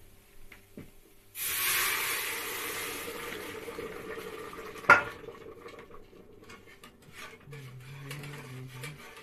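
Water poured from a steel jug into a hot, steaming stainless-steel soup pot: a loud rushing hiss that starts suddenly about a second and a half in and slowly fades, with one sharp metal clank of the jug against the pot about halfway through. Quieter scraping of stirring in the pot follows near the end.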